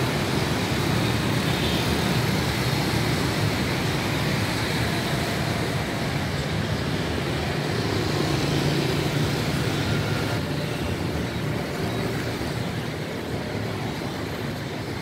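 Steady rumble of road traffic from the surrounding city, an even, unbroken noise that eases slightly near the end.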